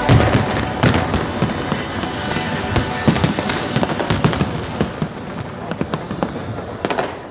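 Fireworks display going off: a dense, irregular run of bangs and crackling, loudest just as it begins, with sharp cracks throughout.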